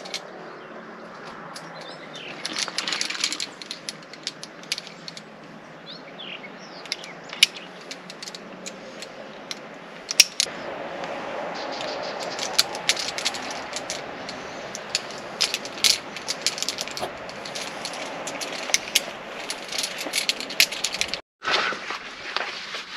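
Metal climbing carabiners and quickdraws clinking and clicking irregularly as they are handled and clipped onto a harness.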